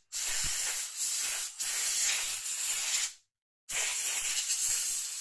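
Aerosol spray can hissing in three bursts of one to two seconds each, with short breaks between, as the phone's parts are sprayed clean.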